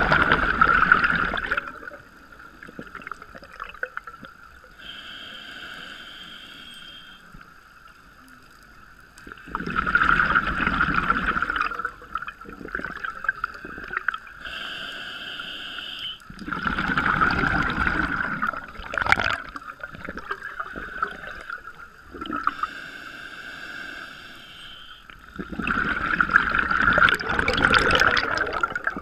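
Scuba diver breathing through a regulator, recorded underwater: a loud rush of exhaled bubbles about every eight seconds, four times, with a quieter hissing inhale between each.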